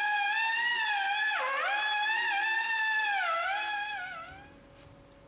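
Background music: a single synth lead voice playing a sliding melody. It fades out about four seconds in, leaving a faint steady hum.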